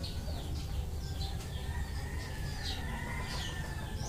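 Small birds chirping: a string of short, falling chirps, roughly two a second, over a steady low background rumble.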